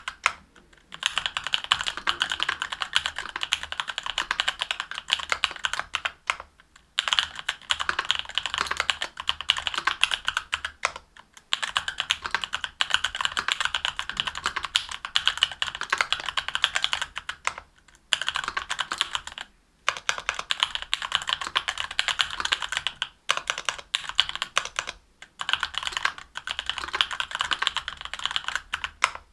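Continuous fast typing on a mechanical keyboard with Durock Korbs 62g linear switches on an aluminium plate, GMK keycaps clacking, broken by several brief pauses.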